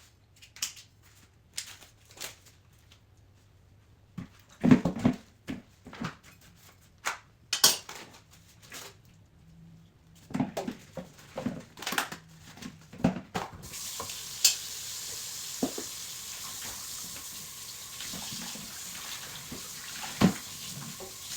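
Kitchen cooking prep: scattered knocks and clatter of dishes, pans and utensils being handled. About two-thirds of the way through, a steady hiss sets in and continues under further clinks.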